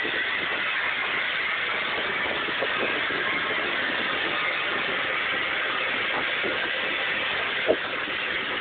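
Steady hiss and rumble in the cab of a steam locomotive, with no beat of exhaust, and one short sharp knock near the end.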